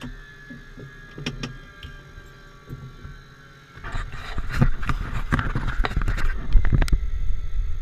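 Light aircraft cockpit just after engine shutdown, propeller stopped: a faint whine slowly falling in pitch, then from about four seconds in, louder rustling with many sharp clicks, as of handling inside the cabin.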